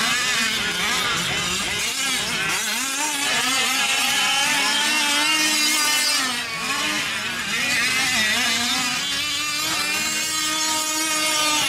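Several 5th-scale gas RC off-road trucks racing, their small two-stroke engines revving up and down, with the pitches overlapping and rising and falling continuously.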